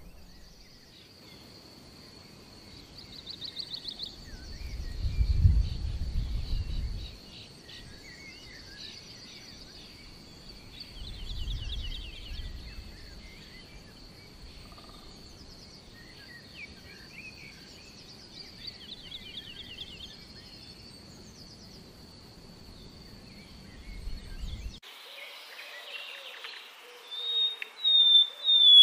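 Scattered bird chirps over a steady high-pitched tone, with two low rumbles. Near the end a common nightingale starts singing loudly in repeated phrases.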